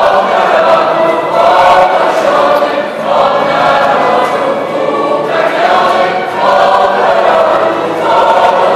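Mixed choir of teenage girls and boys singing a Christmas carol together, in sustained phrases with short breaths between them.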